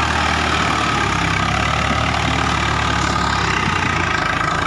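Tractor's diesel engine running steadily at one constant speed, a low even throb with no change in revs.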